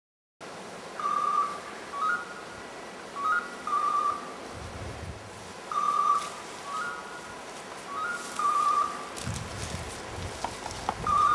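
Hunting dog's electronic beeper collar sounding short, repeated tones about every second: a steady pulsing beep alternating with a two-note rising chirp. Occasional low rumbles run underneath.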